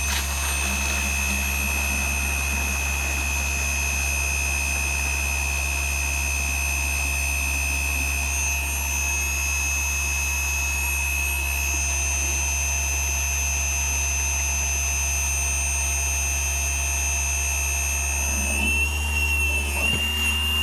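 Homemade 36-volt brushless DC water pump running at full speed, a steady high electric whine over a low hum, moving water through a hose. Near the end the whine rises a little and the sound turns unsteady as the supply bucket runs dry.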